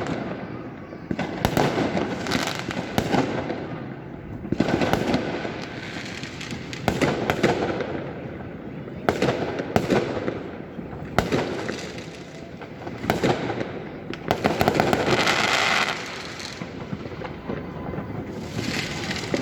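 Fireworks going off in quick succession: many sharp bangs with stretches of crackling between them, the densest crackling about fifteen seconds in.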